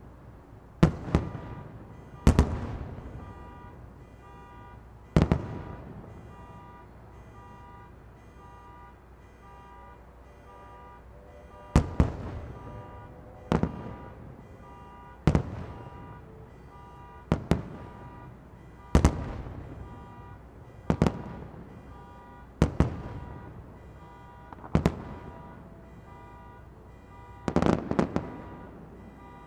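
Aerial fireworks shells exploding: a dozen or so sharp booms, one every one to three seconds, each trailing off in a rolling echo, with a close double boom near the end.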